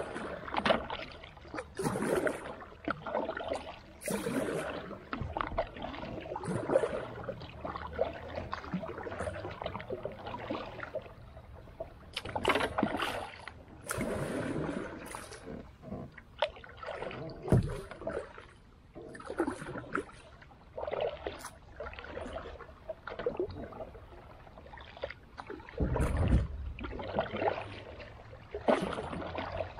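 Creek water splashing and sloshing in irregular strokes every second or two. Near the end comes a heavier, deeper splash or thump.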